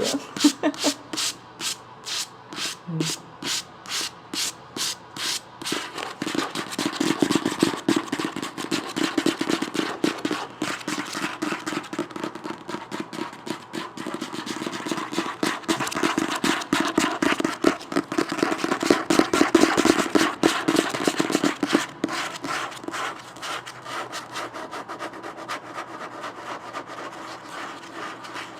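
Fingers working a book for ASMR: about three to four quick, even taps a second for the first six seconds, then a long stretch of fingers rubbing and scratching over the book, loudest past the middle and softer near the end.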